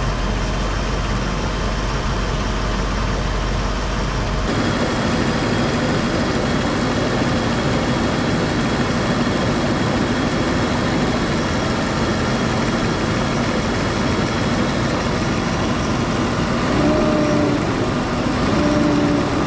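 Mercedes 500SL's M119 5.0-litre V8 idling under the open hood, with the idle rising briefly twice near the end. The idle is jumping around, which the owner believes is a new vacuum leak.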